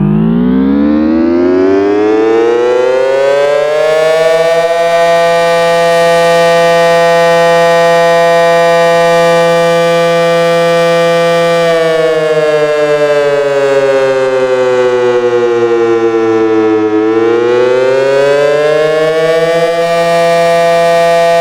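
Early Federal Signal 500 outdoor warning siren winding up to full pitch over the first few seconds and holding a steady tone. About halfway through, the pitch slowly sags for several seconds, then winds back up to a steady tone near the end.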